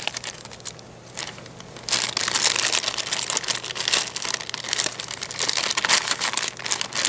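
Thin clear plastic toy bag crinkling as hands pull it open and handle the pieces inside. The crinkling is fainter for the first couple of seconds, then dense and continuous.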